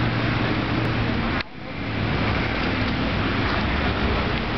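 Steady outdoor background rumble of road traffic with faint voices, dipping sharply for a moment about one and a half seconds in.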